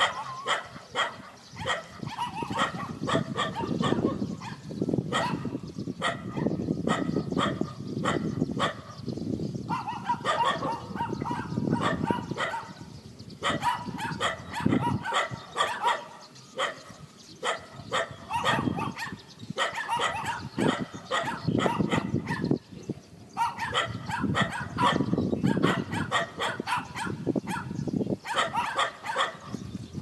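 Dogs barking over and over, short sharp barks coming several a second in bursts with brief breaks.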